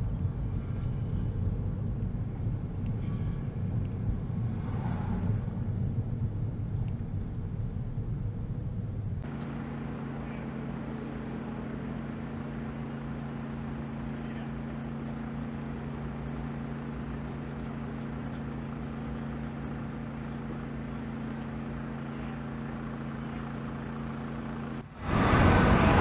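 Road noise of a car being driven, heard from inside, for the first nine seconds or so. It then gives way abruptly to a steady low hum with a few fixed tones, and a sudden loud noise starts near the end.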